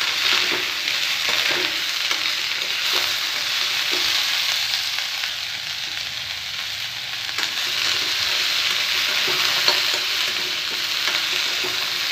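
Chopped radish and radish greens sizzling steadily in hot oil in a metal kadhai, while a spoon stirs them, scraping and knocking now and then against the pan.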